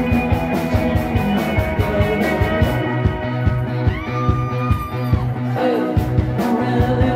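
Live psychedelic rock band playing: electric guitars, bass and drums. About three seconds in the drums drop out for a couple of seconds while a single note bends upward and is held over the bass, then the full band comes back in.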